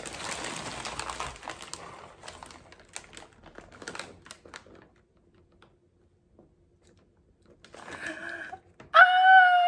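Packing paper being pulled open and crinkled: a rustle at first, then scattered sharp crackles before it goes still. Near the end a high, drawn-out excited vocal cry of "ah".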